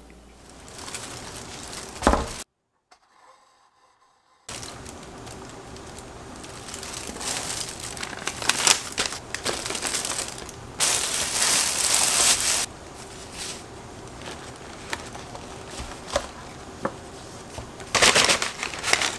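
A plastic carrier bag and paper takeout bags rustling and crinkling as they are opened and unpacked, in uneven bursts, loudest a little past the middle. A sharp knock about two seconds in, then two seconds of silence.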